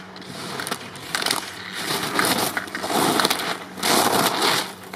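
Slalom skis carving turns on hard, groomed race snow: the edges scrape in a loud rasping hiss that surges with each turn, about once a second. A few sharp clicks come through over it.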